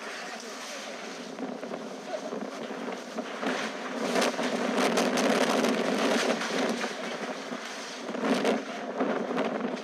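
Strong gusting wind storm, swelling to its loudest gust about four seconds in and again briefly near the end, with a crackling rattle through the loudest stretch.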